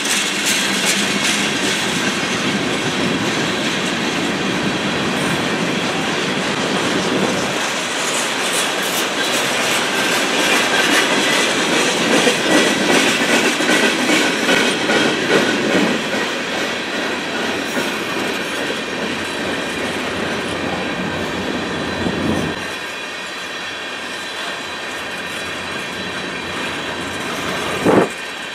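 Freight cars of a passing train rumbling and clacking over the rail joints in a steady run of clicks, loudest about halfway through. Near the end there is a brief loud thump.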